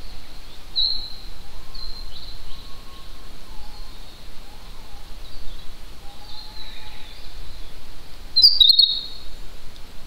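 Woodland birdsong: small birds chirping and trilling high up, with faint, low, wavering flute-like whistles underneath, the call of a white-bellied green pigeon. About eight and a half seconds in, a brief loud noise comes with a louder burst of chirps.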